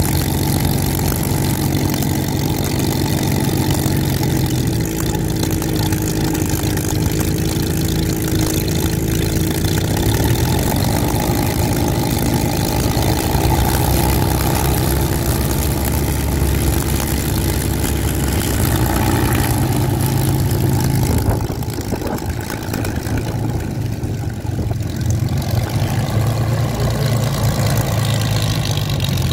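Two-seat Spitfire's Rolls-Royce Merlin V12 running at idle on the ground, propeller turning, its note shifting a few times. About three-quarters of the way through it eases back briefly, then runs steadily again as the aircraft taxis away.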